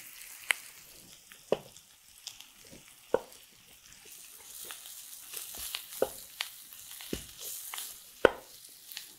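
Potatoes and onions frying in oil in a skillet, with a faint sizzle and a spatula scraping and knocking against the pan at irregular moments as they are stirred to coat them in the spices. The loudest knock comes near the end.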